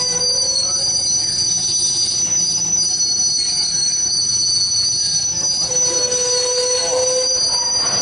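Freight train of high-sided waste cars rolling past close by, its steel wheels giving off a steady high-pitched squeal over the rumble of the cars.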